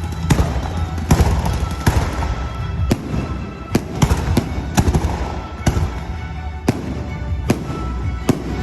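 Festival fireworks going off: about a dozen sharp bangs at roughly one a second, some in quick pairs, with music playing underneath.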